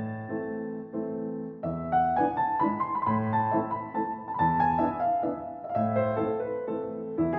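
Background piano music: a gentle melody over sustained chords, growing fuller about a second and a half in.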